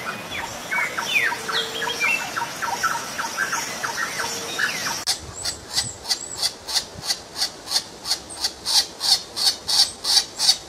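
Bird chirps at first. From about five seconds in comes a rapid, evenly repeated run of calls, about three a second, growing louder: woodpecker nestlings begging from the nest hole.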